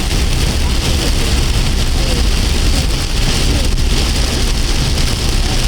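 Heavy rain falling steadily on a car while it drives, heard from inside, over the low rumble of the moving car.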